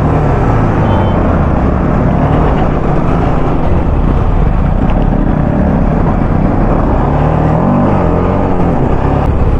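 TVS Apache RR 310's single-cylinder engine pulling away and riding at low speed over a rough road, with steady road and wind noise. Near the end the engine pitch rises as it accelerates.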